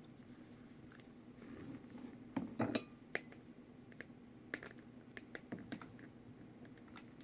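Light scattered clicks and taps of hands working rope around a small vase, a cluster of louder knocks about two and a half seconds in, over a faint steady hum.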